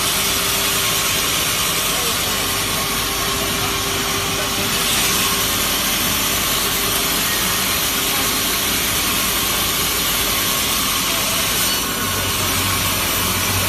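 Log sawmill machine's saw cutting through a log: a loud, steady noise with a steady whine underneath. A low hum comes in near the end.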